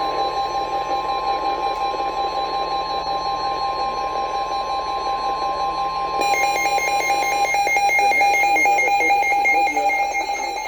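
NOAA Weather Radio's 1050 Hz warning alarm tone, a steady single-pitch tone that cuts off about seven and a half seconds in, announcing a severe thunderstorm warning. About six seconds in, a louder, rapidly warbling electronic alarm joins it.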